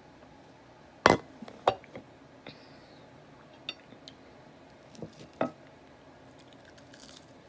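Eating utensils clinking and scraping against a plate or dish, a series of separate sharp knocks, the loudest about a second in, one leaving a brief ring.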